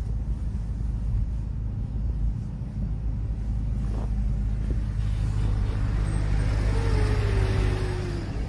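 Engine rumble and road noise of a moving vehicle, heard from the car filming. The hiss and rumble swell from about halfway through as it comes alongside a tow truck, and a faint falling tone sounds near the end.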